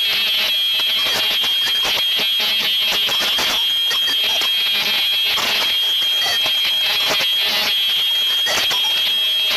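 Embossing machine running as a blue plastic strip feeds through it, giving a steady high-pitched whine over a rough, crackling hiss.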